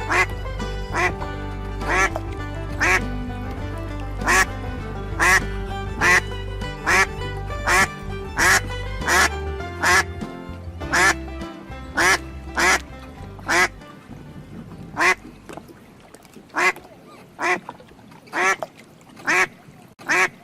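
Duck quacking over and over, short sharp quacks coming about one to two a second and spacing out later. A low music bed underneath drops out about two-thirds of the way through, and everything fades toward the end.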